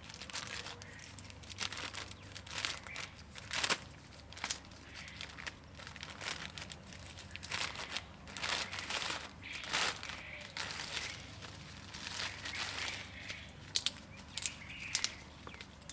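Clear plastic bag crinkling in the hands as it is worked down over a leafy citrus branch, mixed with the rustle of the leaves. It comes in irregular crinkles, some sharper and louder than others.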